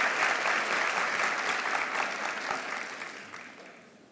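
An audience clapping, a steady dense patter of many hands that dies away over the last second or so.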